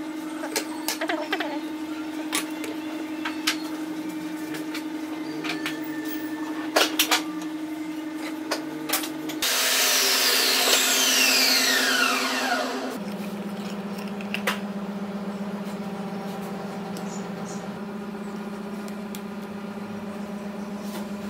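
Light clicks and taps of a metal speed square and steel rule being set down and shifted on a pine board, over a steady machine hum. From about nine to thirteen seconds a louder hiss with a falling whine runs under it.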